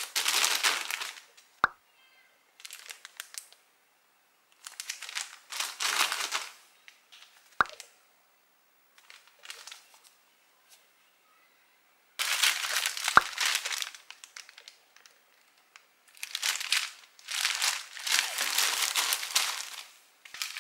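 Plastic zip-lock bags of baby clothes and towels crinkling as they are handled and packed into a suitcase, in several separate bursts, with a few short sharp clicks.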